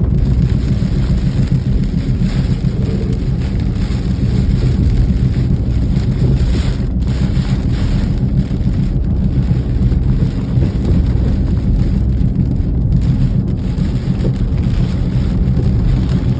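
Hurricane rain and wind heard from inside a moving car: a steady, heavy rumble with rain hiss over it.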